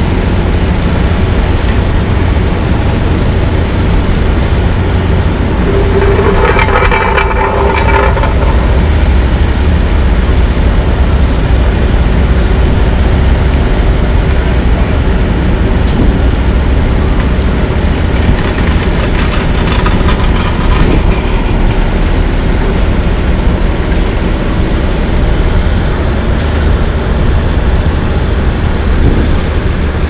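Heavy diesel engines of a dump truck and an asphalt paver running steadily and loudly, with a brief higher-pitched whine about six seconds in.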